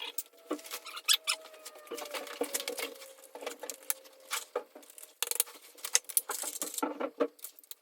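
Small plastic blind hardware, hooks and end covers, being handled: a dense run of irregular clicks, taps and rattles.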